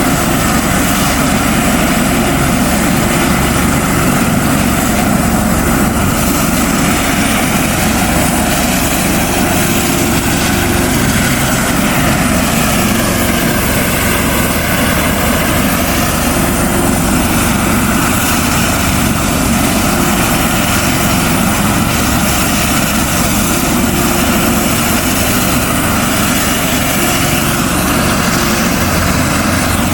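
Helicopter engine and rotor running steadily and loudly close by, with a constant drone and fast rotor pulsing underneath.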